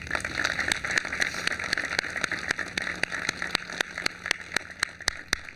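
A small crowd applauding, many quick hand claps that thin out near the end.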